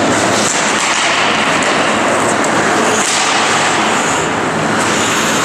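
Loud, steady arena noise at an ice hockey game: skates on the ice and the hall's ambience blend into an even rushing sound, with no single distinct hit.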